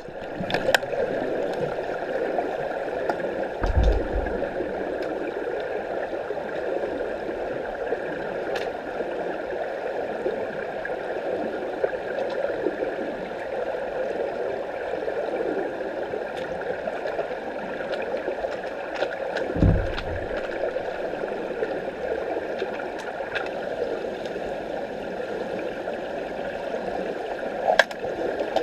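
Muffled underwater ambience of a swimming pool, heard through a submerged camera: a steady rushing noise with scattered sharp clicks, and low thuds about 4 and 20 seconds in.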